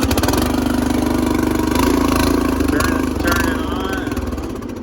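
A 13.5 horsepower riding lawn tractor engine running just after starting on choke, with a fast, even firing beat. Its level sags near the end.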